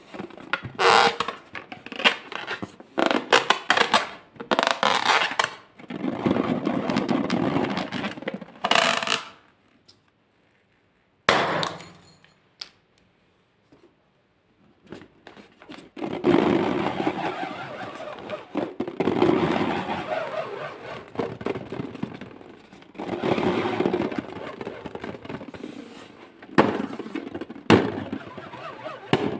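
Slime being worked, making irregular crackling, squishing bursts, with a break of near silence about ten to fifteen seconds in.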